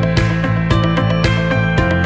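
Background music with a steady beat and plucked guitar-like notes.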